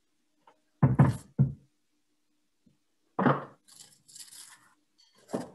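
A few sharp knocks and thunks on a kitchen counter as a clothes iron is moved and stood up on its heel, with a brief crinkling of aluminium foil being handled about four seconds in.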